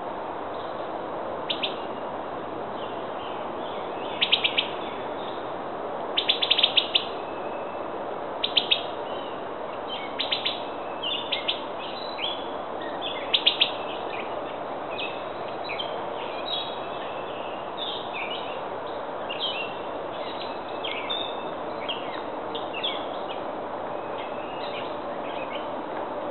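Small songbirds chirping in short runs of quick, high notes, loudest in the first half, over a steady background hiss.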